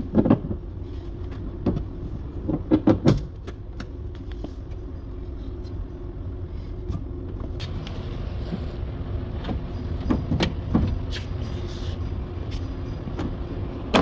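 Knocks and clunks from hands working inside a Toyota RAV4 door with its trim panel off, over a steady low hum. There is a cluster of loud knocks about three seconds in and more around ten seconds.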